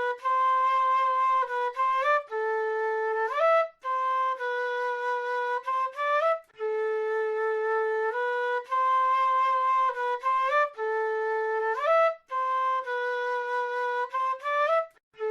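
Solo South American flute playing a slow melody, held notes joined by rising slides, in short phrases separated by brief gaps.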